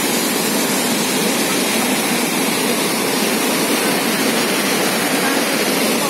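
A waterfall in heavy flood, muddy water pouring over rock ledges: a steady, loud rush of falling water.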